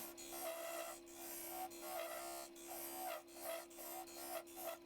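Handsaw cutting through the last of a partly parted-off holly spindle blank, faint and rhythmic at about three strokes a second, over a steady low hum.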